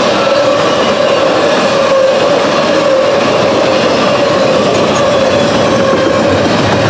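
Double-stack intermodal freight train rolling through a grade crossing: a loud, steady rumble and clatter of steel wheels on rail as the container cars pass, with a steady mid-pitched tone running under it.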